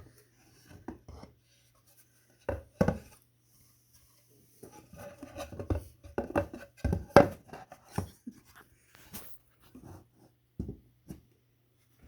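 Wooden beehive box parts being handled and fitted together by hand: a run of irregular wooden knocks and clatters, the loudest about seven seconds in.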